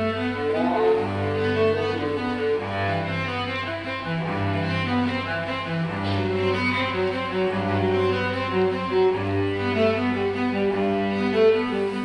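Bowed cello music: long low notes held for a second or two at a time, with a line of shorter, higher notes moving above them.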